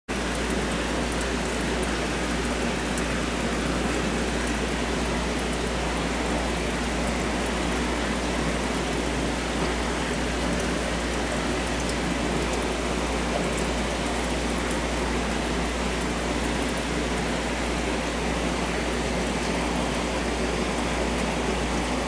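Steady rush of an aquarium's water circulation and aeration, a continuous hiss with faint fine crackling, over a constant low pump hum.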